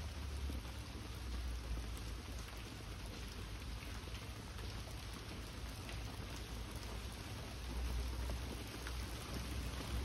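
Steady rain falling, with scattered drops ticking on nearby surfaces. A low rumble swells twice, around the start and again near the end.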